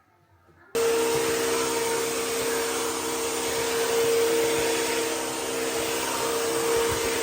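An electric appliance motor switches on abruptly about a second in and runs steadily, with a loud rush of air and a constant whine.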